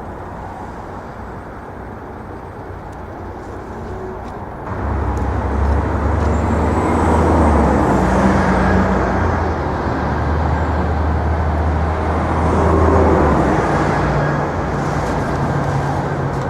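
Road traffic going by, with a motor vehicle's low engine rumble that comes in suddenly about five seconds in, stays strong for several seconds with a faint rising and falling whine above it, and eases off near the end.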